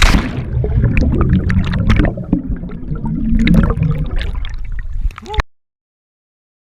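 Water splashing and gurgling close to the microphone, as from someone getting into the water to swim, full of sharp little slaps; it cuts off abruptly about five and a half seconds in.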